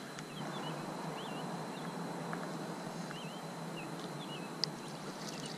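Outdoor ambience with a bird giving short, wavy chirps several times over a steady background hiss, and one sharp click a little before the end.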